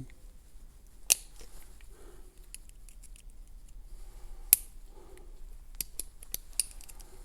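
Small metal tools clicking and scraping against a Paclock 200A padlock's cylinder as it is taken apart, working at a thin retaining circlip. Two sharp metallic clicks stand out, about a second in and about halfway through, followed by a run of lighter ticks.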